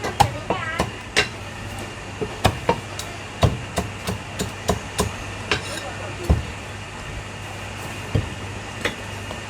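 Meat cleaver chopping roast meat on a chopping block: a series of sharp, irregular chops, roughly one or two a second, with short pauses between.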